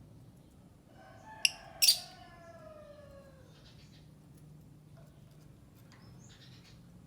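Lovebird calling: two loud, sharp shrill chirps in quick succession about a second and a half in, over a longer note that falls in pitch, then a few faint chirps.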